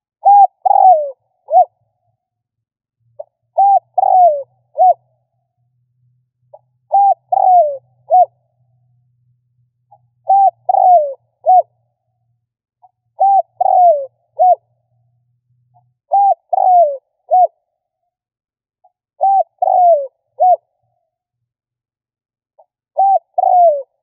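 Spotted dove cooing in repeated phrases, about one every three seconds. Each phrase is a soft lead-in note, two quick rising-and-falling coos, then a short clipped final note.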